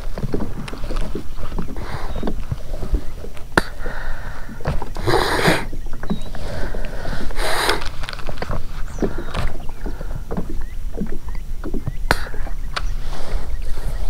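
Water slapping against a fishing kayak's hull, with wind rumbling on the microphone. Scattered small knocks run throughout, and there are two brief noisy bursts about five and seven and a half seconds in.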